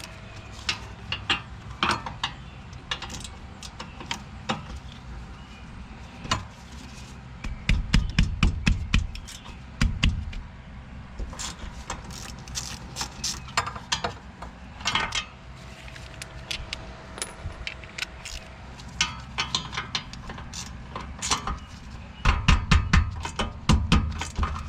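Hand ratchet with a 17 mm socket clicking in quick runs as it is swung back and forth, loosening the rear wheel hub bolts. Heavier low knocks come in about eight seconds in and again near the end.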